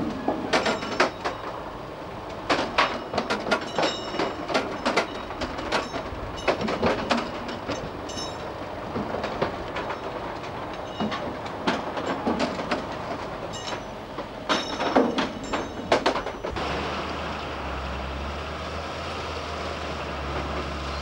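Rail-mounted track-dismantling work train with conveyors and a loading arm, clanking and clattering with many sharp, irregular metal knocks and squeals. About two thirds of the way through, this gives way to the steady low drone of a wheel loader's diesel engine running on the track.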